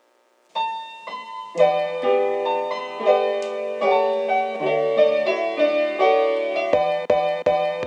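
Background music: a keyboard melody of sustained piano-like notes begins about half a second in, joined near the end by a beat of short percussive hits.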